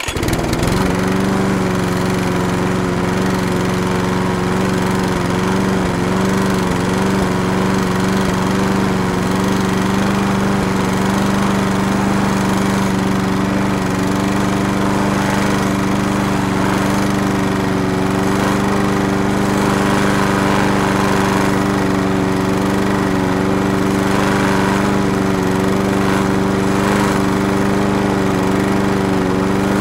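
Walk-behind lawn mower engine running at a steady, constant speed, cutting in suddenly at the start.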